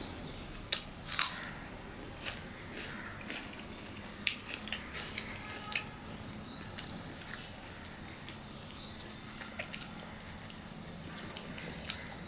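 Eating by hand: chewing and mouth smacks with irregular short, sharp clicks as roti is torn with the fingers and dipped in mutton curry.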